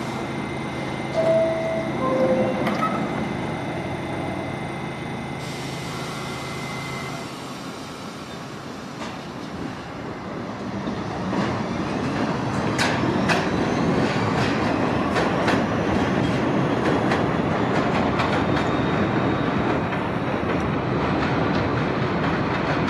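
R68A subway train: a two-tone descending chime, then the train running on the elevated track, its wheels and motors growing louder about halfway through, with sharp clicks over the rail joints.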